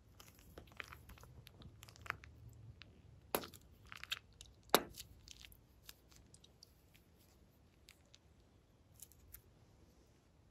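Plastic piping bag crinkling and crackling as it is squeezed and handled, with two sharper crackles a few seconds in, then only scattered faint clicks.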